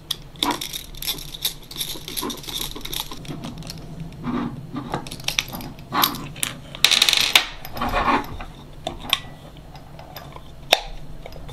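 Small metal precision screwdriver and screws clicking, tapping and scraping against a 3D-printed plastic housing as it is assembled, with a short metallic rattle about seven seconds in and a sharp click near the end.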